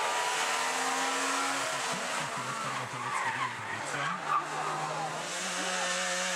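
Two-stroke engines of Wartburg and Trabant rally cars running hard through corners, the engine note rising and falling with gear changes and tyres squealing, then one engine held at steady revs near the end.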